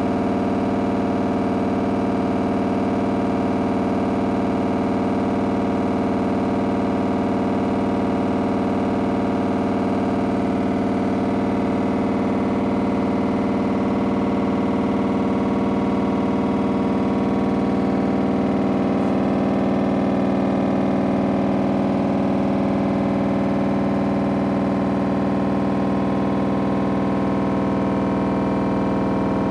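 Samsung front-loading washing machine running with a very loud, fast rattle over a steady droning hum.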